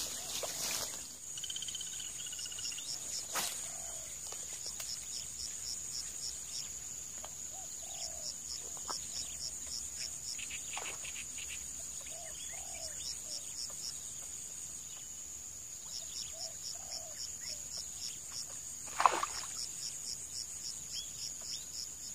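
Steady high insect drone with regular trains of rhythmic cricket chirps. About nineteen seconds in comes one brief splash, a snakehead striking at a soft frog lure on the water's surface.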